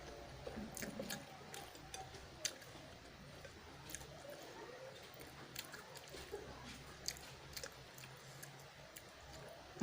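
Close-up eating sounds of a person chewing spicy instant noodles, with irregular wet mouth clicks and smacks.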